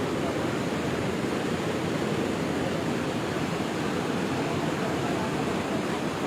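Kabul River in flood, with fast, muddy water rushing past in a steady, even roar.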